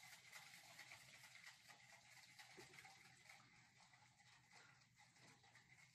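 Aerosol can of shaving cream being shaken hard by hand: a faint, rhythmic sound at about five shakes a second, growing fainter near the end.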